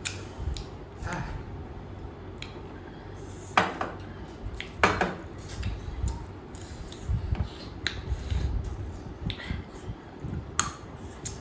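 Dishes and eating utensils clinking during a meal: a scatter of small knocks and taps, with two louder sharp clinks about three and a half and five seconds in.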